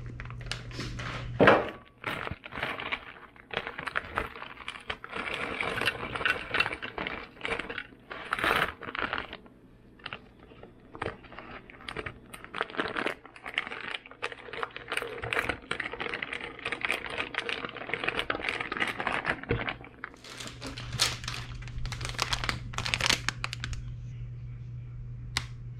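Crinkling and rustling, as of something being handled, with many light clicks and taps; a single sharp knock about a second and a half in is the loudest sound. A low steady hum stops about two seconds in and comes back near twenty seconds.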